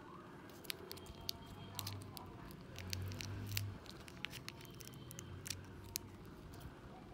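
Miniature plastic toy pieces being handled: a tiny spoon tapping and scraping against small plastic cups and pots, making scattered light clicks throughout.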